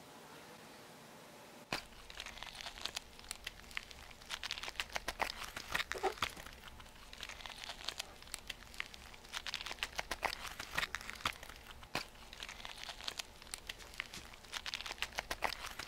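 Whiteboard marker squeaking and scratching across a whiteboard in many short, irregular strokes, starting about two seconds in.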